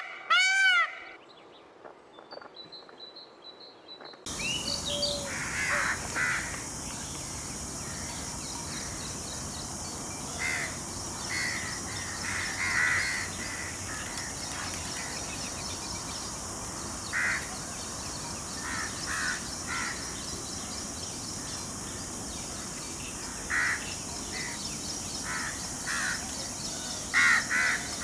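Birds giving short, harsh, caw-like calls, singly and in quick pairs, scattered over a steady high hiss. The first second holds the end of a louder run of repeated arching calls.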